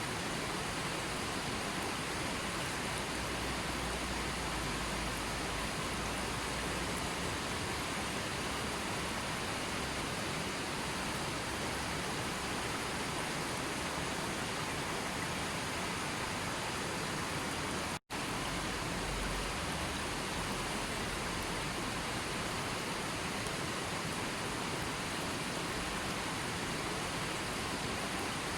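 Steady rushing water, an even hiss-like roar. It drops out for an instant about eighteen seconds in, then resumes unchanged.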